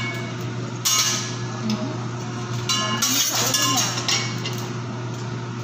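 Metal teppanyaki spatula and fork clinking and striking against each other and the steel griddle: a few sharp, ringing metallic hits, with a denser clatter about three seconds in. A steady low hum runs underneath.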